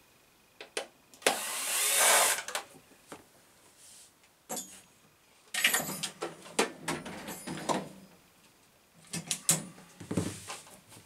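Handling noise from working on a plastic RC buggy body and roll cage: scattered clicks and knocks with several short bursts of rustling and scraping, the loudest about two seconds in.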